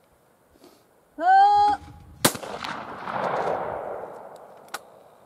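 A shooter calls "pull" loudly about a second in. About a second later a single 12-gauge shot from a Perazzi DB81 over-under trap gun cracks and rolls away in an echo that fades over about two seconds. Small clicks follow as the gun is broken open.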